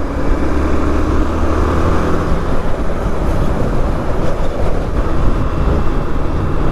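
Honda Twister motorcycle's single-cylinder engine running steadily at low speed in slow traffic, its hum under steady wind and road noise on the rider's microphone.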